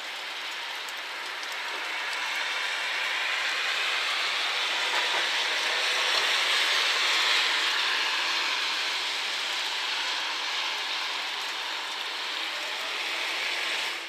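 Rushing noise of a passing vehicle, swelling to a peak about halfway through and then easing off.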